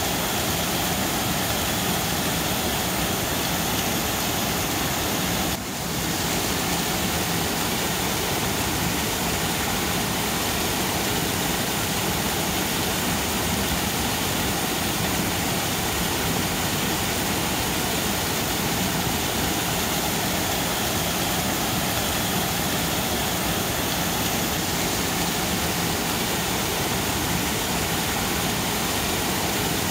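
Waterfall rushing in a steady, even roar of falling water, with a brief dip about five seconds in.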